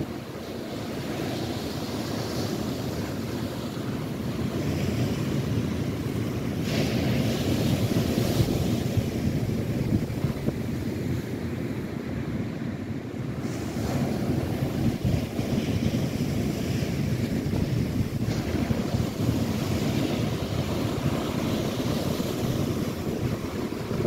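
Lake Erie waves rolling in and breaking on the shore in a continuous wash of surf, swelling and easing, with wind buffeting the microphone.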